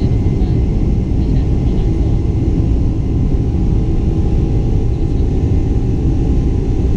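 Cabin noise of a Boeing 747-400 with GE jet engines, heard from a window seat over the wing while it taxis slowly: a steady low rumble with a faint, even whine above it.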